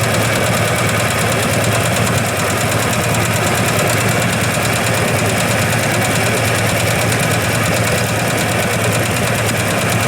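Diesel engine of a 1969 Iseki KD900 walk-behind tractor, built by Kawasaki Aircraft, running steadily with a fast, even knocking beat.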